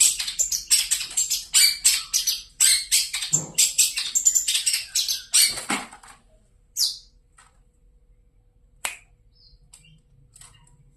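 Long-tailed shrike in full song, a fast, loud run of notes for about six seconds that breaks off into a few scattered single notes.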